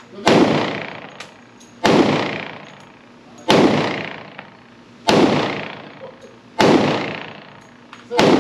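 Glock 20 pistol firing 10mm Auto rounds in slow, steady succession: six sharp shots about a second and a half apart. Each crack rings out in a long echo off the walls of an indoor range.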